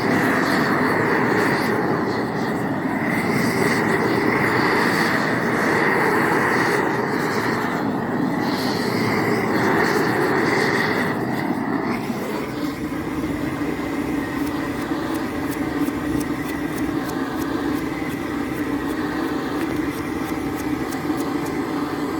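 Steady loud rushing noise while a slaughtered pig's carcass is scraped clean of hair. The sound shifts in character about twelve seconds in.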